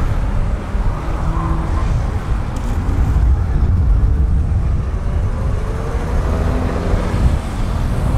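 Diesel engine of a vintage double-decker bus pulling away from a stop and accelerating, with a deep, steady rumble and a faint rising whine as it gathers speed.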